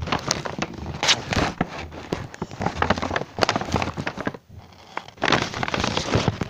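Handling noise on a phone's microphone: rustling, rubbing and crackling knocks as the phone is carried and propped up, in two stretches broken by a short lull a little past the middle.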